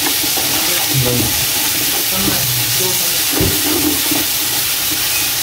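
Ginger-garlic paste and masala sizzling in hot oil in a pot while being stirred with a spatula, a steady frying hiss.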